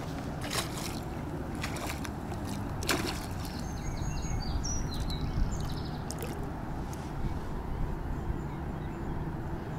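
A hooked young bream splashing and thrashing at the water's surface as it is played in on a float rod, with a few sharp splashes in the first few seconds over a steady low rumble.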